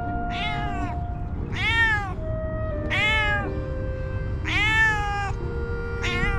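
Hungry tabby cat meowing five times, each meow rising then falling in pitch, about one every second and a half.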